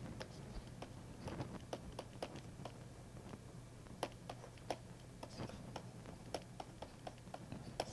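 Faint, irregular clicks and taps of a stylus on a pen tablet during handwriting, several a second, over a low steady hum.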